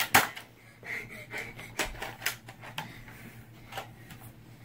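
A string of sharp, irregular plastic clicks from a small Nerf blaster being handled and worked, about six in all, the loudest right at the start.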